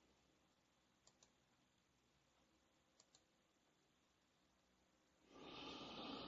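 Two pairs of faint clicks about two seconds apart, a computer mouse button pressed and released. Near the end comes a louder noisy rush lasting about a second.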